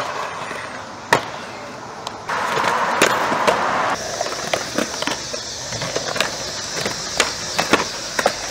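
Skateboards on concrete: wheels rolling, with repeated sharp clacks of boards popping and landing. There is a louder rough stretch from about two to four seconds in.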